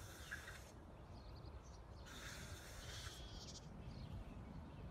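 Faint outdoor background: a steady low rumble with faint high chirps about two to three seconds in.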